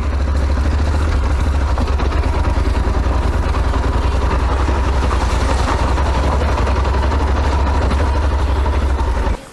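Adventure motorcycle engine running steadily at low revs, a loud, low, fast-pulsing rumble that cuts off abruptly near the end.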